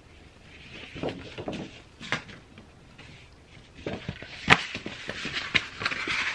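Paper rustling and crinkling as sheets are handled, with a sharp crack about four and a half seconds in, then dense crackling as a sheet of paper is crumpled up in the hands near the end.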